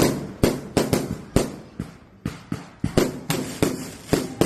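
A rapid, slightly irregular run of sharp firework bangs, about three a second, each cracking and fading quickly.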